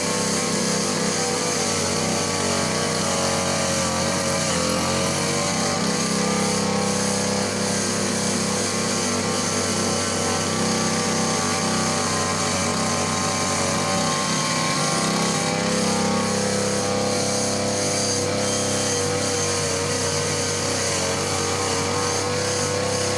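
Petrol brush cutter (grass-cutting machine) engine running steadily at working speed, its pitch wavering slightly as the throttle shifts.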